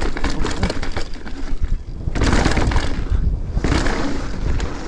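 Mountain bike rattling down a rough, rocky trail: a rapid clatter of knocks from tyres, chain and frame on rock and roots, then two louder rushes of noise from about two seconds in.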